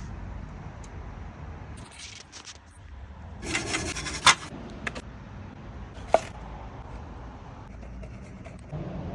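Rubbing and scraping from hand work on a car exhaust pipe, with a short burst of scraping about three and a half seconds in that ends in a sharp click, and another sharp click about six seconds in, over a low steady rumble.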